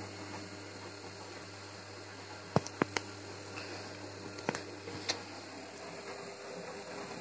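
Gorenje WA 50050 front-loading washing machine running a wash cycle: a steady motor hum under the swish of wet laundry turning in the drum, with a few sharp clicks between about two and a half and five seconds in.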